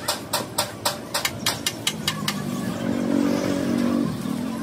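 Sharp regular knocks, about four a second, for the first two seconds, then an engine speeds up, runs for about two seconds and drops back about four seconds in.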